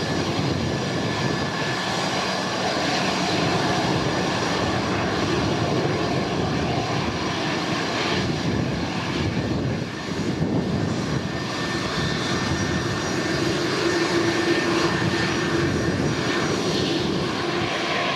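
Bombardier CRJ-200ER regional jet's two rear-mounted General Electric CF34 turbofans running at taxi power as it taxis and turns: a steady jet rush with a thin whining tone, dipping briefly about halfway through.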